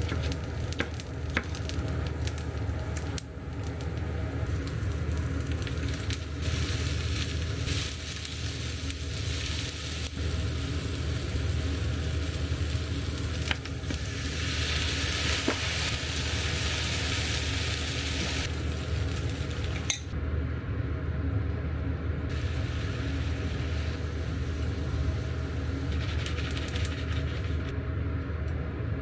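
Food sizzling in a frying pan, the sizzle growing stronger and weaker as it is stirred, with scattered clicks of a utensil against the pan over a steady low hum.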